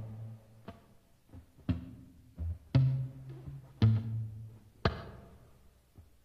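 Music: slow, sparse low drum hits, about one a second, each ringing briefly and fading before the next.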